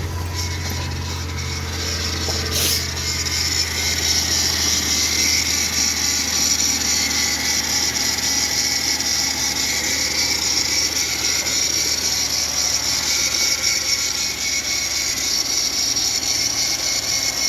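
2006 Hyundai Santa Fe's engine running on its newly fitted battery: a steady, fast mechanical clatter, with a sharp click about three seconds in.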